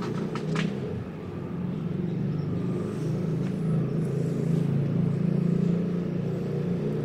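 A steady low engine-like rumble with a few sharp clicks in its first second.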